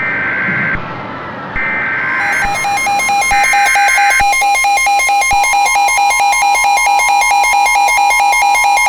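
Emergency Alert System alert tones: three short bursts of the screechy two-pitch digital header. From about two seconds in they are overlaid by a loud electronic alarm tone that pulses rapidly and evenly, and a steady tone joins about halfway through.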